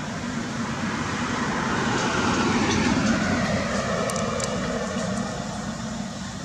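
A motor vehicle passing by, growing louder to a peak about halfway through and then fading away.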